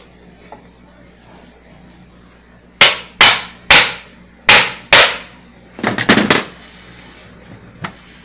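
Five hard blows struck on the orange juicer's housing to knock its parts into place, each with a short ring, followed about a second later by a quick flurry of lighter knocks.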